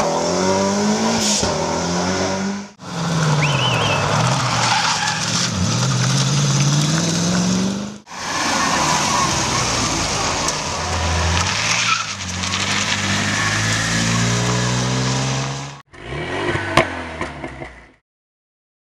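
Several classic competition cars, a Peugeot 205 rally car and a BMW 3 Series among them, driven hard up a hillclimb one after another in short clips. Their engines rev high, the pitch dropping into bends and climbing again through the gears, with a sharp crack near the end before the sound cuts out.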